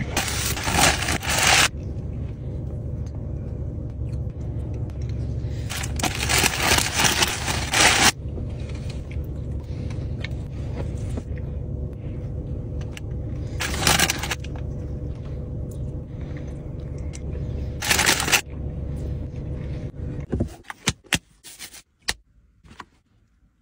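Paper food wrappers crinkling and rustling in gloved hands in four loud spells of a second or two each, over a steady low hum in a car cabin. Near the end the hum drops away, leaving only a few light clicks and taps.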